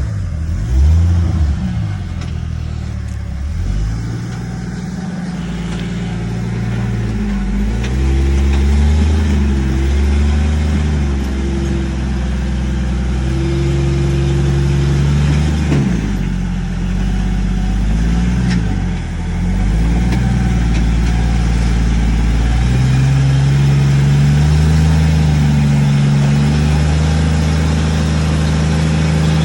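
Rock crawler's engine running and being revved, its pitch repeatedly rising and falling, with short drops in revs about 16 and 19 seconds in.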